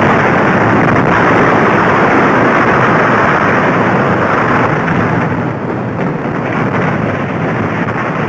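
Film sound effect of a big explosion: a long, loud, continuous rumble that slowly dies away from about five seconds in.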